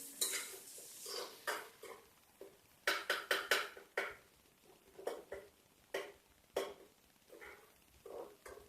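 A spoon stirring and scraping an onion-and-tomato masala in a cooking pot: irregular knocks and scrapes against the pot, in clusters with short pauses between.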